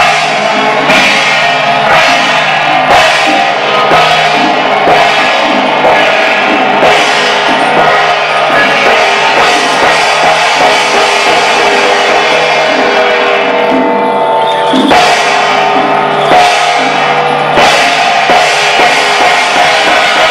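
Taiwanese temple-procession music: drum, gongs and cymbals beat a steady rhythm under a sustained melody line, loud and unbroken.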